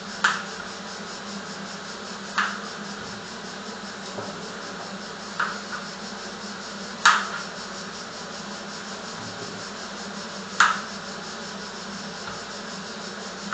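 Kitchen knife cutting the tips off zucchini on a cutting board: single sharp chops every two to three seconds, about six in all, over a steady background hum.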